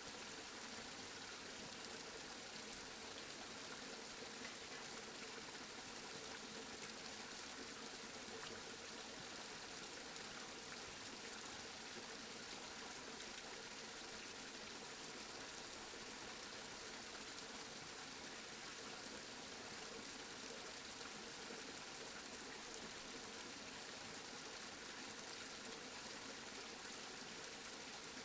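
Steady rain falling, a faint, even hiss with no thunder or separate drops standing out.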